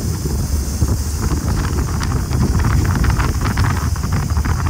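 Wind rushing and buffeting over the microphone of a moving motorcycle, a Bajaj Pulsar 220, with the bike's engine running underneath as it rides at speed.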